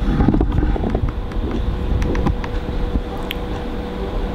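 Steady low rumble of room noise with a thin steady hum, and a few faint clicks as the navigation button of a handheld spectrocolorimeter is pressed.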